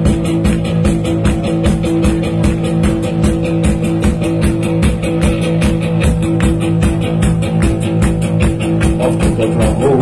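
A live rock band plays through a PA system: electric guitar, sustained held notes and a steady drum beat. A singing voice comes in right at the end.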